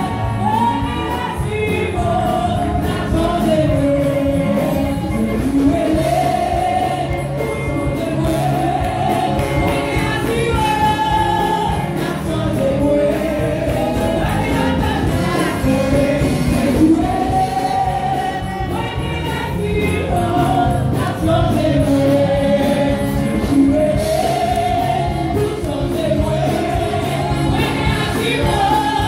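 Live gospel worship music: several women singing into microphones together, amplified through the church PA and backed by instruments with a steady beat.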